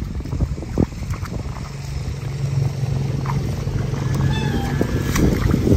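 Wind buffeting the microphone, with a steady low engine hum for most of the stretch and a brief faint animal call about four seconds in.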